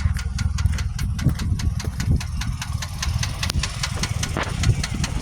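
2001 Pontiac Grand Am's 2.4 L LD9 twin-cam four-cylinder engine running with a quick, even knock. The rod and crank bearings have already been replaced, and the owner suspects a worn wrist pin.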